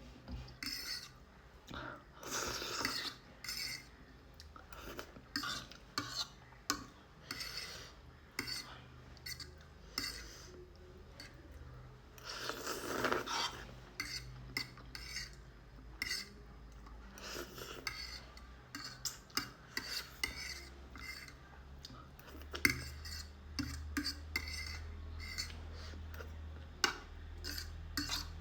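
Eating utensil clinking and scraping against a dish of noodles in many short, irregular strokes, as the food is stirred and picked up.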